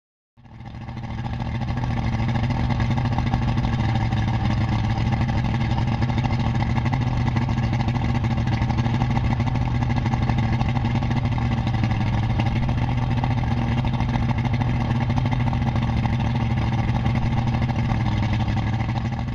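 Johnson FastStrike 150 V6 two-stroke outboard running at a steady speed out of the water, fed by a garden hose on its lower unit. It fades in just after the start and holds an even pitch throughout.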